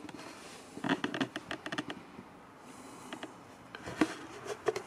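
Footsteps on a wooden floor with small clicks and creaks: a cluster of quick clicks about a second in, another near the end, and a sharper thump about four seconds in.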